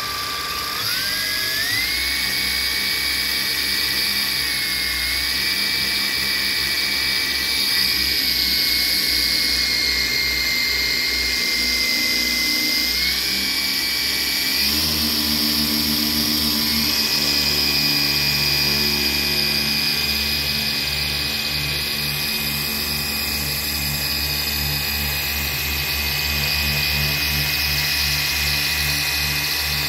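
Ryobi cordless dual-action polisher running steadily with a motor whine as it works polish into a car's paint. Its pitch steps up about a second in as the machine speeds up, and shifts again about halfway through.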